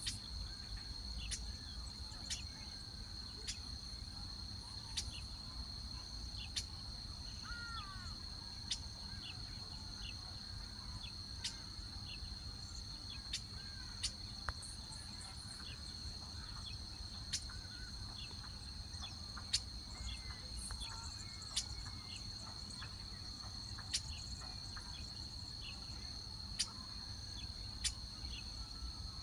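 Outdoor insect chorus: a steady, high-pitched insect trill that never lets up, with short sharp chips every second or two and a few faint gliding bird calls, over a low rumble.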